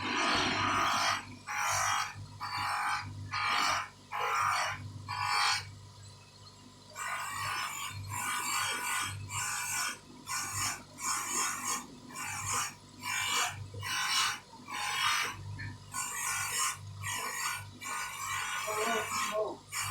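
Rhythmic back-and-forth rubbing strokes, roughly one a second, of hand-polishing a scratched acrylic watch crystal: a scratchy, squeaky scrub at each stroke, with the strokes coming closer together after a short pause about six seconds in.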